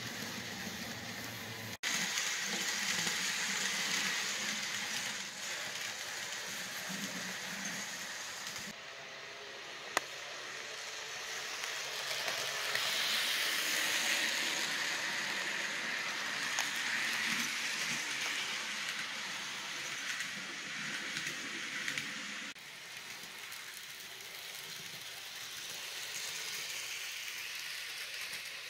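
Model trains rolling along layout track: a steady whirring hiss of wheels and motors, with a sharp click about ten seconds in. The sound level jumps abruptly a few times where the shots change.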